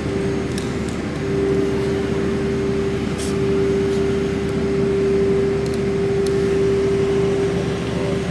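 Small electric motors of a model tower crane running with a steady whine as the crane rotates its jib, the whine growing stronger about a second in.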